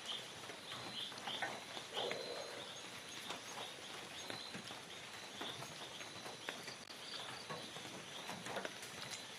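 Forest ambience: small animals give short high chirps over and over, a few every second, with scattered faint clicks and a faint steady high drone.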